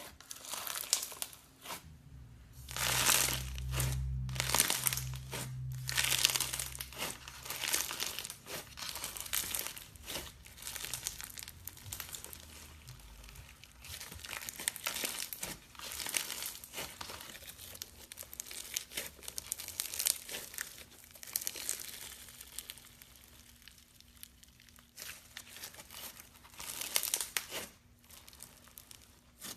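Hands squishing and pressing slime, giving a run of irregular crackling, crinkling sounds, loudest a few seconds in and again near the end.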